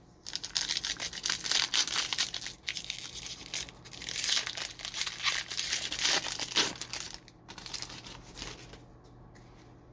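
A foil trading-card pack wrapper being torn open and crinkled by hand, a dense crackling that thins out after about seven seconds.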